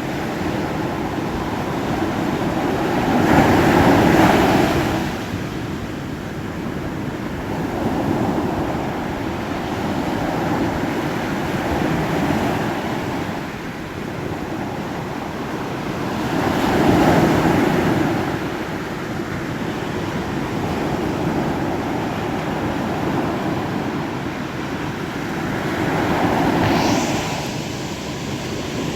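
Ocean surf: a steady wash of waves on the shore, swelling louder three times as waves break, a few seconds in, about halfway and near the end.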